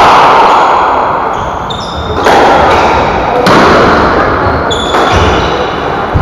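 Squash rally: the ball struck hard by racket and wall about every second or so, each hit sharp and echoing in the enclosed court, with short high squeaks between the hits.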